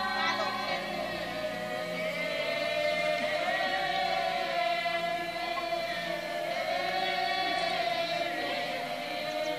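A group of seated Buddhist monastics in robes chanting together in unison, one sustained line that slowly wavers up and down in pitch.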